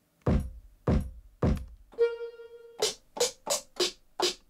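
Electronic beat played back from studio monitors: three deep kick-drum hits, a held synth note about two seconds in, then a quick run of sharp, bright snare- or clap-like hits.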